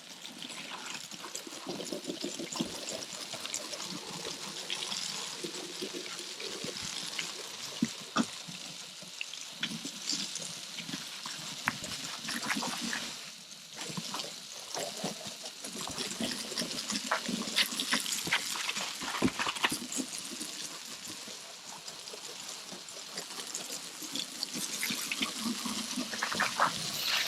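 Water spraying and splashing onto wooden deck boards as the deck is wetted down before cleaning, a steady hiss with crackling spatter that eases briefly about halfway through.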